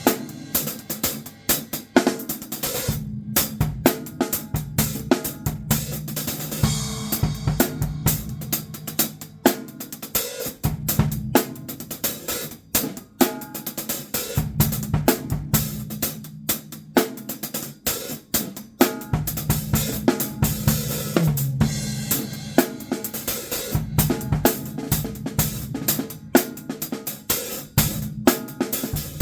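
Drum kit played in a solo: a dense, continuous stream of snare, bass drum, hi-hat and cymbal hits.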